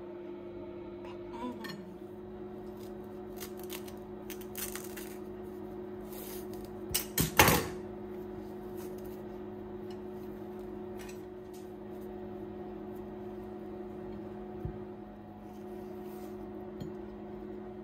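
Light clicks and clinks of a ceramic plate being handled on a kitchen counter while bananas are peeled by hand, with a cluster of sharper knocks about seven seconds in, over a steady low hum.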